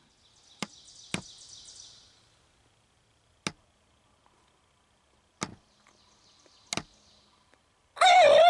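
Several sharp snaps and clicks a second or two apart with faint rustling, then near the end a wild turkey gobbles loudly once for about a second.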